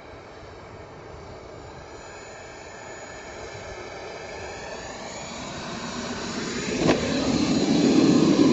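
Turbine engine of a radio-controlled F-22 Raptor model jet whining on approach and getting steadily louder, with a sharp thump about seven seconds in as it touches down on grass, then a louder rushing rumble as it rolls out.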